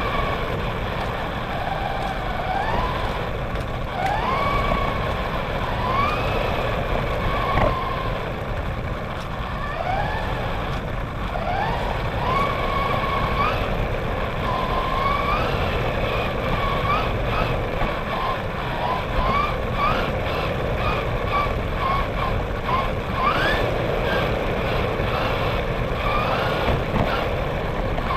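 Motor whine of an RC car, gliding up in pitch again and again as it speeds up and dropping back as it slows, over a steady low rumble of its tyres on the road picked up by a camera mounted on the car.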